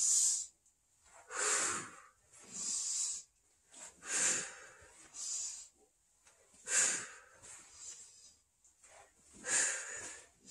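A man's forceful exertion breathing during yoga push-ups, with audible breaths in and out about every second or so, seven in all and a pause of a couple of seconds before the last.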